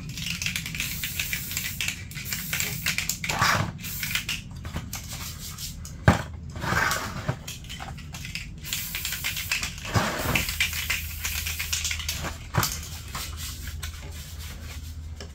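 Aerosol spray can hissing in short bursts as paint is dusted over plastic light surrounds, with a few sharp knocks from the parts being handled.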